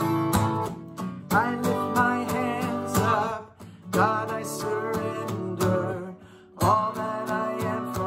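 A man singing with a strummed Guild acoustic guitar. The strumming and the singing drop away briefly twice, about three and a half and about six seconds in.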